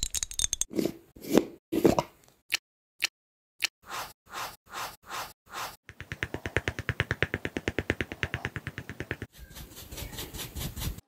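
Makeup-application sounds on an apple: clicks and taps on a foundation bottle, then a makeup sponge patting foundation onto the apple's skin, slowly at first and then in a fast, even run of pats. About a second and a half from the end, this gives way to the softer, steady rubbing of an oval makeup brush buffing it in.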